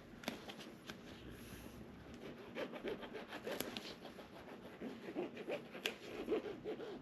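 Rubbing and scratching handling sounds with scattered light clicks, from hands working on a leather couch during a super-glue repair; the rubbing grows busier about halfway through.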